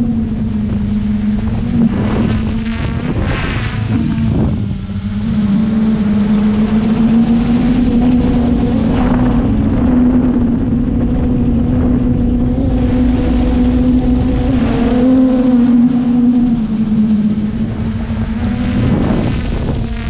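Quadcopter drone's propellers and motors whirring steadily as heard from its onboard camera, a single hum whose pitch dips and rises slightly as the drone manoeuvres, with a few brief rushes of noise.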